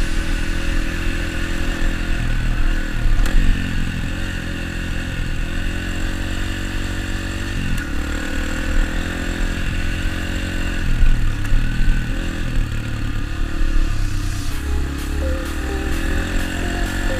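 Dirt bike engine running on a trail ride, its pitch rising and falling as the throttle opens and closes.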